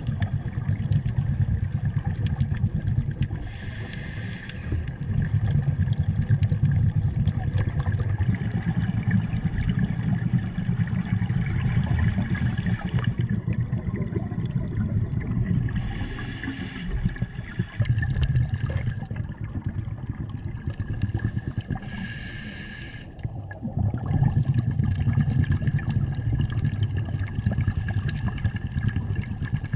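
Scuba diver breathing through a regulator underwater: long rumbling bubble exhalations, broken three times by a short hissing inhalation, a few seconds in, near the middle and about three-quarters through.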